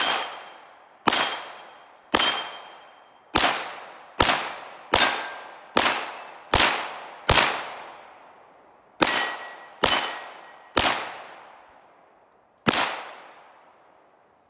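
STI 2011 DVC Open pistol in 9mm Major, fitted with a compensator, fired thirteen times at a rack of steel resetting plates. Each shot is followed by the ringing of the struck plate. The shots come roughly a second apart, with a longer pause about seven seconds in and another before the last shot.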